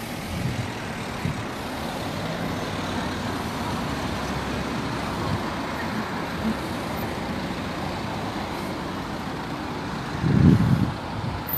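Cars driving slowly past at close range in a line of traffic: steady engine and tyre noise, with one car louder as it passes near the end.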